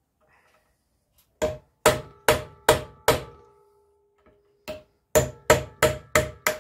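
Hammer blows on a slim steel tool set against the metal motor housing of a motorcycle ABS modulator clamped in a bench vise. There are two runs of about five sharp strikes, roughly two to three a second, with a pause in between. Each strike leaves a short metallic ring.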